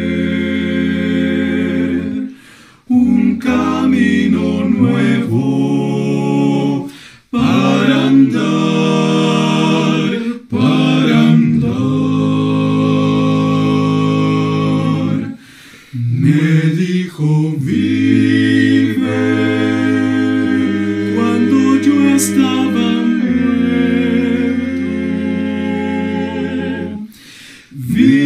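Male vocal quartet of two tenors, baritone and bass singing a hymn unaccompanied in four-part harmony, holding long chords phrase by phrase with brief breaths between phrases.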